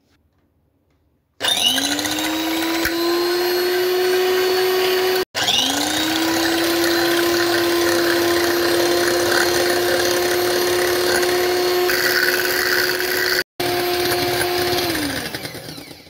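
Electric hand mixer whisking eggs and vanilla essence in a glass bowl, beating them to a froth for a sponge cake batter. It starts about a second in with a rising whine and runs at a steady high pitch. The sound cuts off abruptly twice, the whine rising in again after the first cut, and near the end the motor winds down with its pitch falling.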